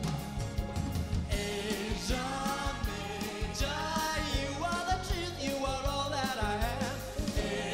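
Live pop band with drum kit playing, with singing coming in about a second in.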